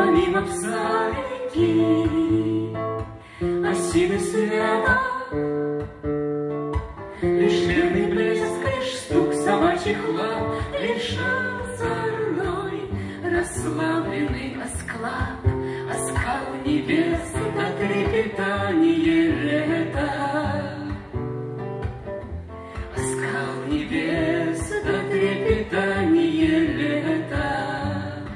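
Russian bard song performed live: singing over acoustic guitar accompaniment.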